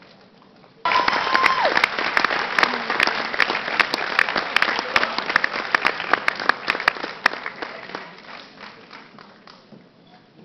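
Audience applause that breaks out suddenly about a second in, with many sharp close claps, and thins out over the last few seconds. A brief high tone holds and then drops in pitch just as the applause begins.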